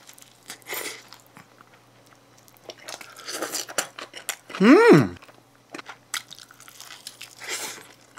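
A person chewing a bite of pizza, with soft crunches from the crust. About halfway through comes a brief hummed 'mm' that rises and falls in pitch, the loudest sound.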